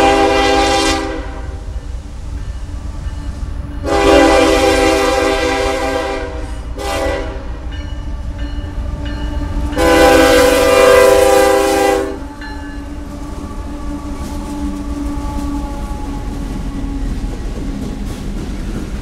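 CSX diesel locomotive's air horn sounding the grade-crossing signal: the tail of a long blast, then a long, a short and a final long blast. After the last blast the coal train's hopper cars roll past the crossing with a steady rumble.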